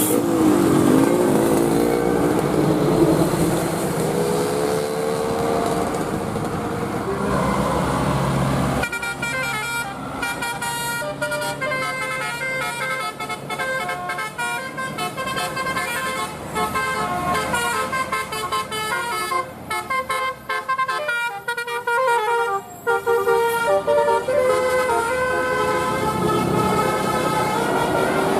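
Bus telolet horn, a set of multi-tone trumpet horns, sounding. For about the first nine seconds it gives wavering, gliding tones; then it plays a fast tune of short notes that change pitch rapidly.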